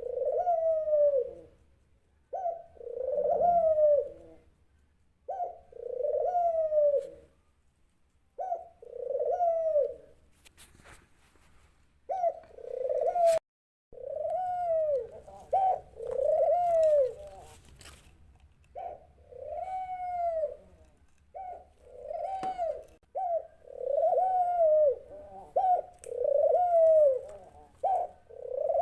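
Dove cooing: a long series of low, arching coo notes, one every two to three seconds, coming closer together in the second half.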